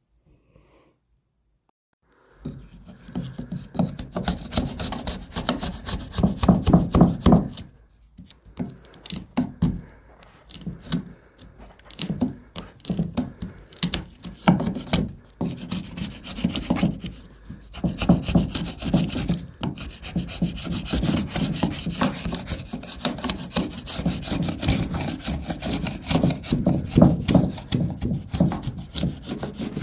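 Tool scraping and rasping across a pressure-treated wooden crossmember in irregular strokes, shaving the rough notch smooth. It starts about two seconds in and keeps going.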